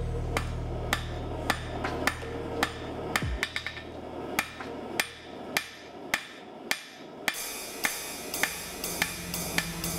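Steady hammer blows on a red-hot steel bar on an anvil, about two ringing strikes every second. Background music plays underneath, dropping out for a few seconds midway.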